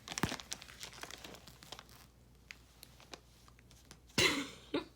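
Faint crinkling and clicking of a plastic treat bag as a cat paws and bites at it, trying to open it. A short, loud burst of noise comes about four seconds in.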